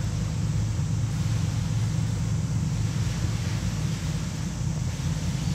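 Steady low engine rumble of a Coast Guard surveillance and control boat cruising past at speed, with a faint hiss of its bow wave and wake.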